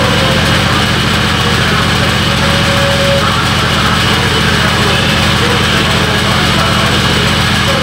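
Large sawmill band saw running steadily: a loud, constant drone from its drive and blade, with a fast, even pulsing in the low end.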